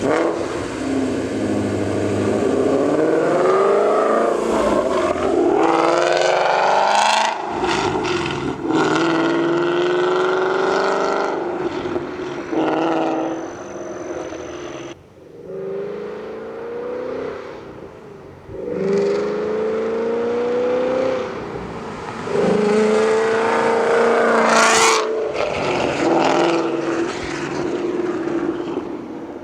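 2015 Ford Mustang GT's 5.0-litre V8, fitted with long-tube headers and a Corsa Xtreme cat-back exhaust, accelerating under load. Several times the exhaust note climbs in pitch, then breaks off and drops before climbing again.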